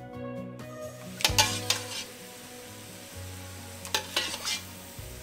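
Penne dropped into a hot stainless steel skillet of sauce, sizzling steadily, with clinks and scrapes of a metal spoon against the pan in two short clusters, about a second in and about four seconds in.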